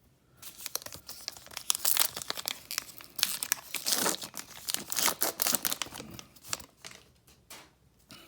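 Baseball card pack wrapper being torn open and crinkled by hand: a dense run of sharp crackling tears and crinkles that thins out near the end.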